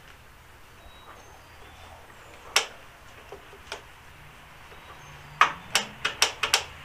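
Sharp metallic clicks of jumper cable clamps being worked onto the lawn tractor's battery terminals: two single clicks a second apart, then a quick run of about six near the end.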